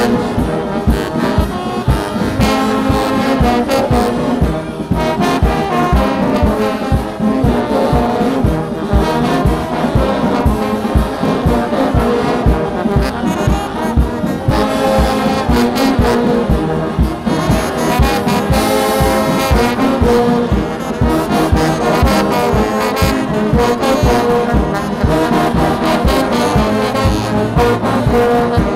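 Brass band music, with trombones and trumpets carrying the tune over a steady drum beat of about two strokes a second.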